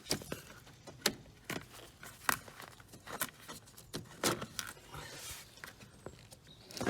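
A part in a car's engine bay being worked loose and pulled out by hand: a series of sharp clicks and knocks, several in a few seconds.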